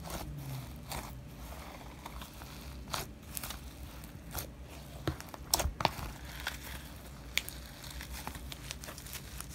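White snow slime, with artificial snow mixed in, being squeezed and stretched by hand, giving irregular sticky clicks and small pops, with a few louder pops a little past the middle.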